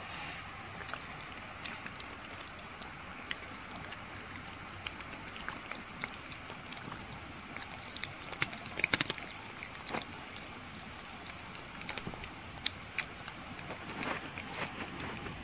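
Kitten lapping melted ice cream from a bowl: a run of small, wet licking clicks. A louder cluster comes about eight to nine seconds in.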